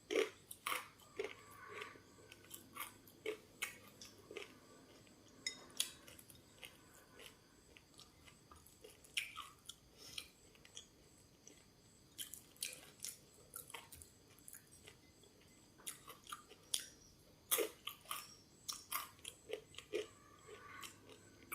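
A person chewing crunchy food close to the microphone, most likely crisp fried macaroni: a steady run of irregular sharp crunches and bites.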